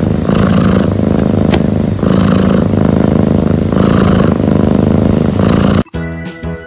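A cat purring loudly right at the microphone, a rough, motor-like rumble that swells with each breath about every one and a half to two seconds. It cuts off suddenly near the end.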